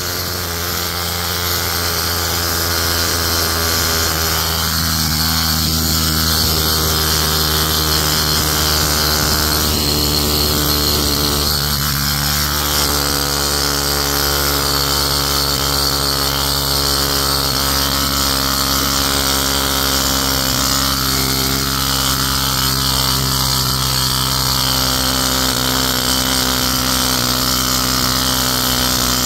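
Ingersoll Rand Model 125 pneumatic needle scaler running steadily, its needles hammering against spalled concrete to knock off the loose, frost-damaged surface. The sound is a loud, continuous buzzing rattle that holds an even level throughout.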